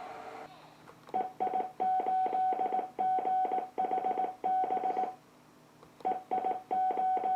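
Computer-generated Morse code (CW) practice tone from the Just Learn Morse Code software: a single steady-pitched beep keyed in dots and dashes, sending two runs of characters with a pause of about a second between them. A steady hum stops about half a second in, before the keying starts.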